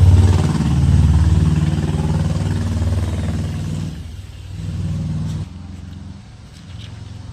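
An engine running with a deep hum, loud at first and easing off about four seconds in, then rising briefly and dropping back suddenly at about five and a half seconds.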